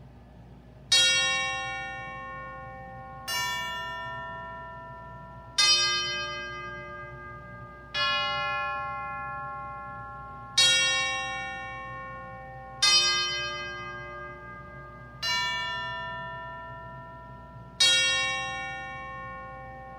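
Bells struck one at a time, eight strokes about two and a half seconds apart, each at a different pitch and ringing on as it slowly fades.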